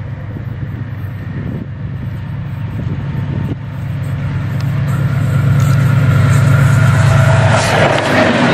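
Pakistan Railways AGE30 diesel locomotive approaching at speed at the head of an express train. Its steady low engine drone grows louder, and near the end it gives way to the rushing noise of the locomotive and coaches passing close by.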